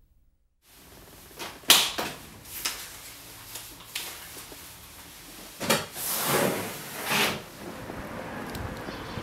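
A sharp knock or click, then a few lighter clicks, then several swells of rustling as a suit jacket is handled and adjusted. A steady outdoor background comes up near the end.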